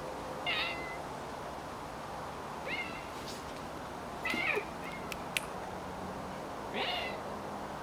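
Domestic cat meowing four times, short high calls about two seconds apart.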